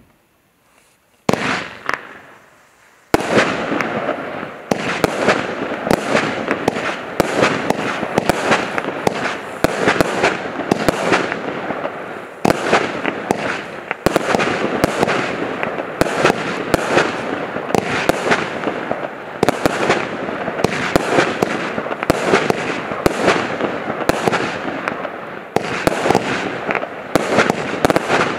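Prestigious Pyrotechnics MEGAMIX compound firework cake firing. A single shot comes about a second in, then from about three seconds a continuous rapid barrage of launches and bursts, many sharp bangs close together over dense crackling.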